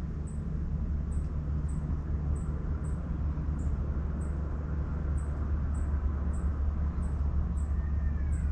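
Steady low rumble of outdoor background noise, with faint high-pitched chirps repeating about one and a half times a second.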